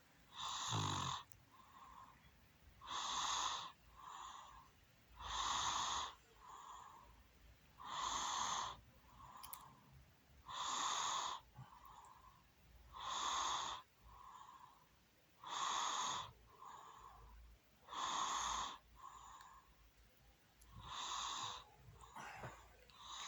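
Someone snoring in their sleep, a loud, hissing snore about every two and a half seconds, each followed by a softer one.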